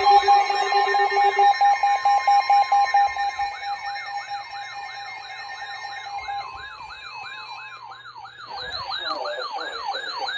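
Several emergency alert receivers sounding at once: steady alert tones that drop out one after another, under a siren-like rising warble repeating about three or four times a second. The warble grows stronger near the end and cuts off suddenly.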